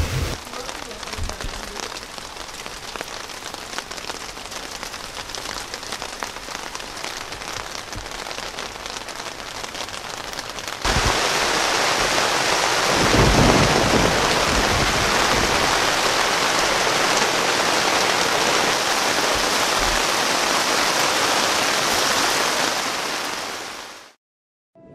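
Rain falling on a tent, a steady even hiss that gets louder about eleven seconds in, with a low rumble a couple of seconds later. It fades out just before the end.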